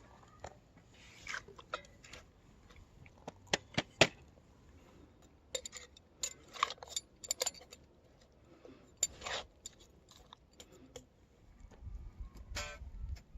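Scattered clicks, taps and short rustles of small objects being handled, with a few sharper knocks about four seconds in and a low rumble near the end.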